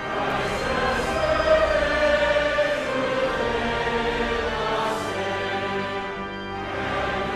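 Choir singing a worship hymn, sustained sung notes with no spoken words.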